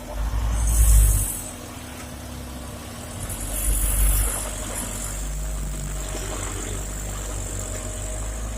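Komatsu PC200-6 excavator's diesel engine running under hydraulic load, swelling louder twice with a brief high hiss each time, then settling to a steady run.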